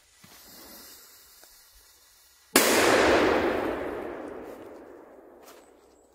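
TP2L firecracker going off about two and a half seconds in: a sudden loud burst of crackling that fades away over about three seconds.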